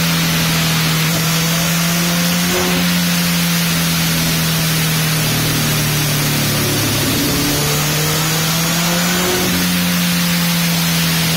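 Honda CBR1000RR inline-four with an Arrow full-system exhaust running under load on a dynamometer, holding a fairly steady engine speed that sags slightly about midway and climbs back near the end. A steady rushing hiss runs underneath.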